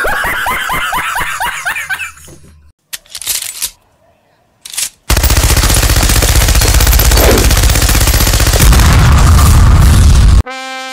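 A man laughing loudly in quick bursts for the first two seconds. From about five seconds in, a long sustained burst of machine-gun fire, very loud with rapid even shots, a deeper rumble building under it near the end, then cutting off abruptly.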